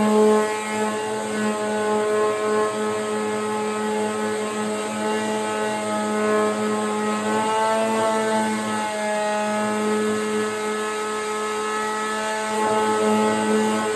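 Electric power sander running steadily while sanding hardened Bondo filler on a hollow-core door: a continuous motor hum with a whine above it. Its pitch wavers briefly about eight seconds in.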